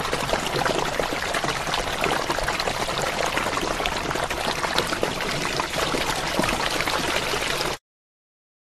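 Water flowing, a steady splashing rush, that cuts off suddenly near the end.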